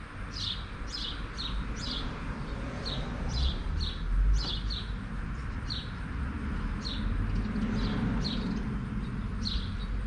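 A bird chirping over and over, short high calls that drop in pitch, about two a second, over a low steady rumble.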